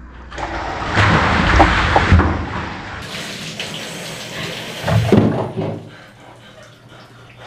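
Ice water poured from above onto a person, splashing over her and onto the tub floor for about five seconds, then a short loud burst just after five seconds in.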